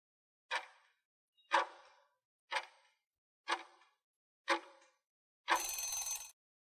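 Countdown-timer sound effect: five clock ticks, one each second, then a harsher noisy burst lasting under a second as the count reaches zero.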